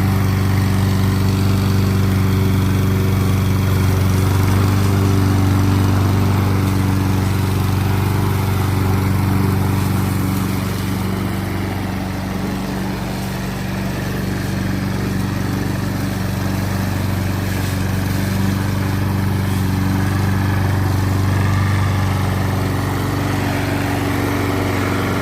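Honda HRN lawn mower's GCV170 single-cylinder four-stroke engine running steadily, dipping slightly in level about halfway through.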